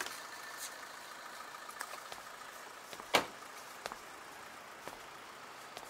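A car door shuts once with a sharp thump about three seconds in, over a faint steady background hiss, followed by a few faint ticks.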